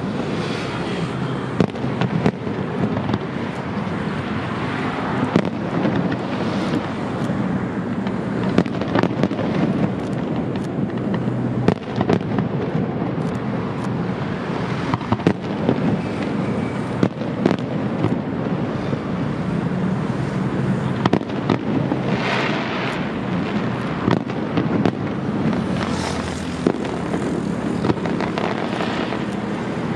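Firework display: aerial shells bursting in quick succession, many sharp bangs over a continuous rumble and crackle. Stretches of hissing crackle stand out about two-thirds of the way through and again near the end.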